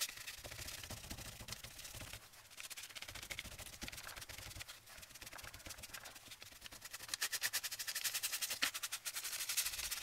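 Damp ink-loaded sponge dabbed and scrubbed over heavy cardstock paper, a faint scratchy rubbing that turns into fast, even strokes about seven seconds in.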